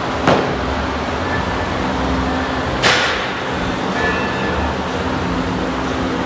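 Two sharp thuds of an athlete hitting a rubber gym floor, one about a third of a second in and a louder one near three seconds, as he drops off the pull-up bar and goes down into a burpee. A steady hum from a gym fan runs underneath.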